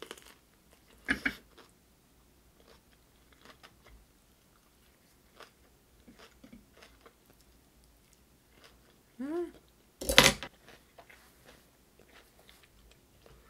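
Chewing and biting into smoked-duck wraps rolled in pickled radish slices: two loud bites, about a second in and about ten seconds in, with soft chewing clicks between them.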